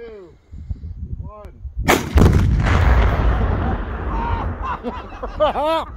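A large Tannerite charge, about 24 lb, detonating about two seconds in: a sharp crack followed by a deep rumbling boom that fades away over a couple of seconds.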